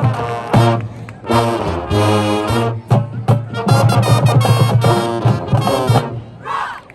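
Marching band brass (trombones and trumpets) playing loud, punchy chords in short stabs over drums, breaking off about six seconds in.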